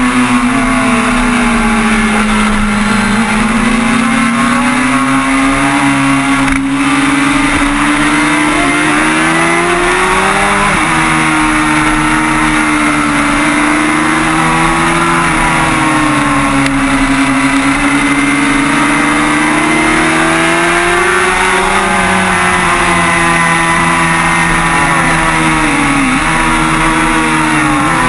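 Kawasaki ZX636R sport bike's inline-four engine running hard under race load, heard from on board, its note climbing and falling with throttle and dropping abruptly at gear changes, over a steady rush of wind and road noise.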